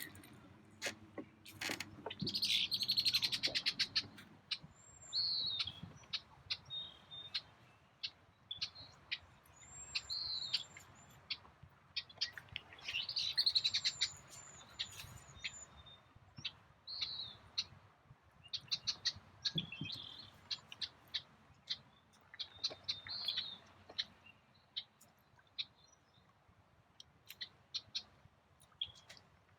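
Birds chirping and singing, short high calls repeated every second or so, busiest in the first half. Scattered sharp clicks run throughout.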